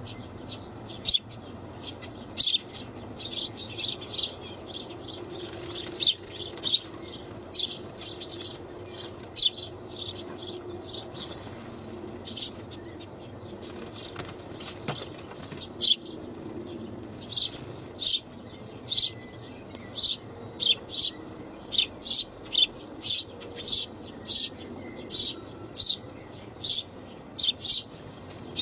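Small birds chirping: many short, high chirps, often in quick runs, over a faint steady low hum.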